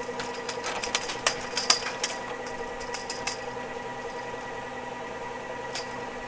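Ski lift machinery running with a steady motor hum, overlaid by a quick cluster of clicks and rattles in the first half, and one more click near the end.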